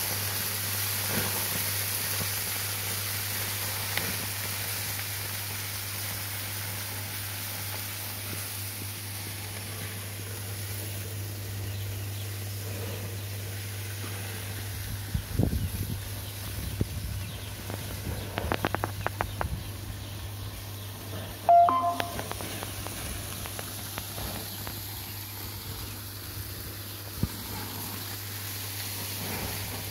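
Sausages and chicken sizzling on a gas barbecue grill, a steady hiss. Scattered clicks and taps come in midway, and a short, sharp pitched sound, the loudest thing here, about two-thirds of the way through.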